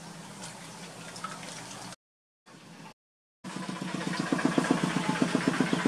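A low steady hum with faint water splashing. After a brief cut, from about three and a half seconds in, a louder engine runs with an even chugging of about six pulses a second.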